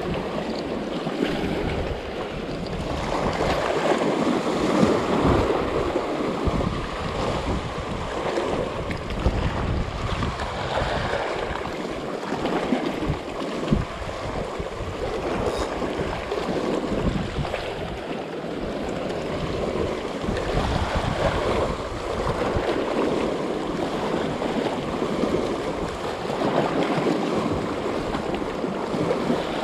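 Small sea waves washing and splashing over shoreline rocks, swelling and easing every few seconds, with wind rumbling on the microphone.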